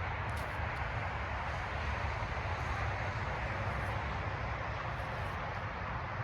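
Strong wind rushing over the microphone: a steady noise with a deep rumble underneath.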